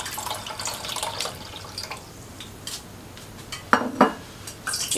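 Water poured from a plastic jug into a glass bowl, splashing for about two seconds and then trailing off. A couple of sharp knocks follow near the end.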